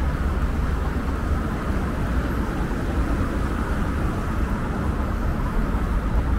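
City street ambience: a steady low rumble from traffic on the road alongside the pavement.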